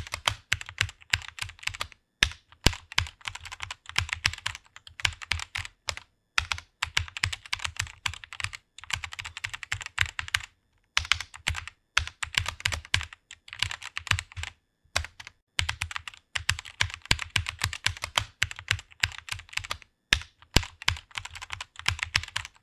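Computer keyboard typing fast, in runs of rapid key clicks broken by brief pauses every few seconds.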